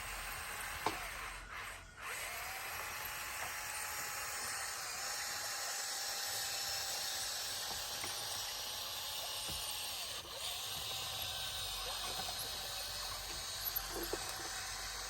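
Bulldozer running, a steady whining drone whose pitch dips briefly twice.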